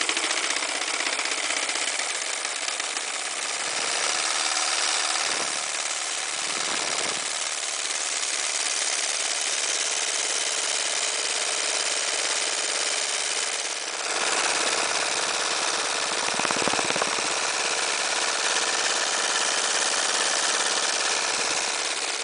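Homemade wobbler (oscillating-cylinder) engine running fast on compressed air: a rapid, steady chatter of exhaust puffs over a continuous hiss of escaping air.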